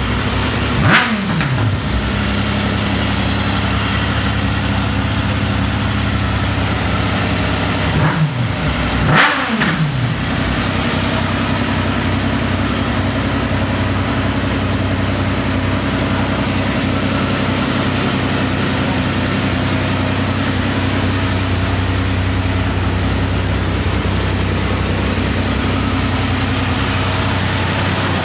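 Triumph 955i Sprint ST's three-cylinder engine idling steadily. The throttle is blipped three times, once about a second in and twice in quick succession around eight and nine seconds in, each rev rising and falling quickly back to idle.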